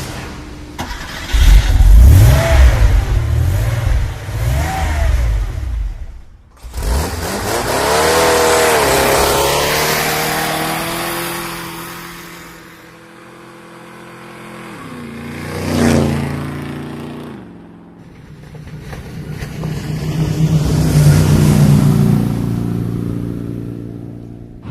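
Car engine sound effects: an engine revving and accelerating, its pitch rising, holding and falling, swelling loudest near the middle as if passing by. There are short breaks about six seconds in and again near eighteen seconds.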